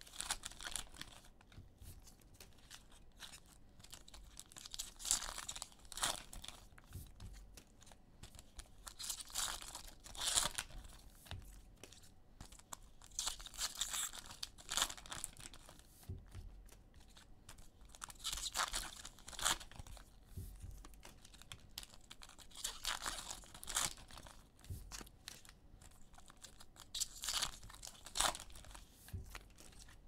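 Cellophane trading-card pack wrappers crinkling and tearing as packs are opened and cards handled. The sound comes in short bursts, often in pairs, every few seconds.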